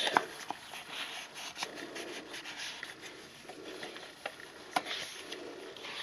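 Soft rustling and handling of the paper pages and paper pieces of a handmade junk journal as it is leafed through, with a few light taps and a sharper tick about five seconds in.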